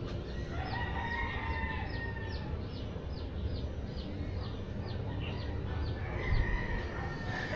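A rooster crowing twice, each crow drawn out for about two seconds, the first about half a second in and the second about six seconds in. Under it runs a steady series of short, high, falling chirps, about three a second.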